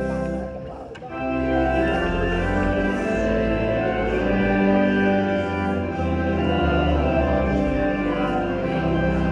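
Music with sustained organ chords that shift every second or two, after a brief dip about a second in.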